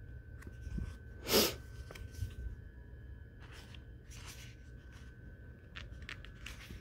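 Stiff sticker-book pages being turned by hand, paper swishing and rustling in a handful of short strokes, the loudest swish about a second and a half in.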